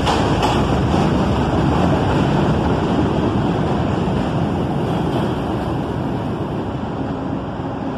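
A G train of R68A subway cars leaving the elevated station, with a loud rumble of steel wheels on rail and a few clacks at the start, fading as it goes. Near the end a steady low hum comes in.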